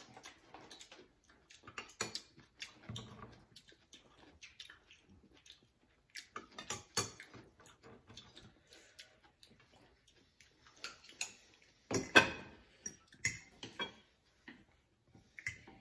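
Eating at a table: chopsticks and utensils clicking and tapping against bowls and plates in irregular short clicks, the loudest cluster about twelve seconds in.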